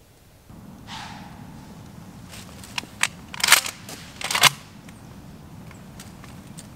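Slug gun being reloaded: a run of sharp clicks and clacks from the gun's action, the two loudest about three and a half and four and a half seconds in, with the spent shell dropping to the ground.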